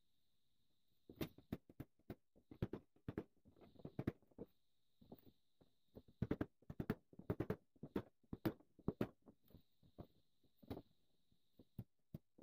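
Irregular knocks and taps of a wooden block against a wooden handsaw handle as its brass bolts are seated, with the saw and tools clattering on the workbench.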